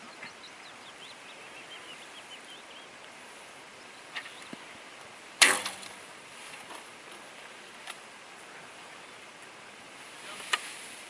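A single loud, sharp bowstring snap from a recurve bow being shot about five seconds in, with a few small clicks of arrows being handled before and after it. Faint birdsong in the first few seconds.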